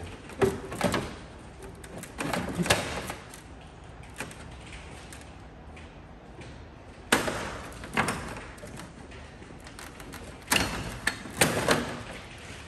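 Stiff plastic push-pin retainers being worked out of a Chevy Avalanche's plastic grille: four bursts of sharp clicks and knocks of plastic and tool, with pauses between.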